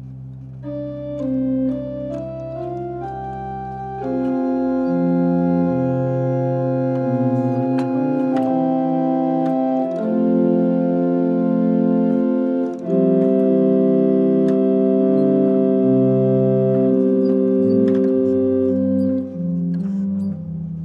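1830 John Abbey pipe organ with mechanical action being played: single notes step upward over a held bass, then from about four seconds in, louder sustained chords change every few seconds.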